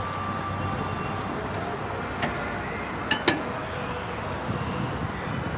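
A few sharp metallic clinks, one about two seconds in and two in quick succession just past three seconds, over steady outdoor background noise, as the tilt hood of a 2002 Sterling LT8500 truck is swung open.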